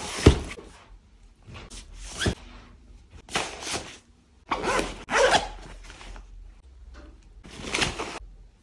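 Zippers and fabric of a Fjallraven Raven 20L backpack being handled in several short bursts as a laptop and a tablet are slid into it, with a couple of light knocks.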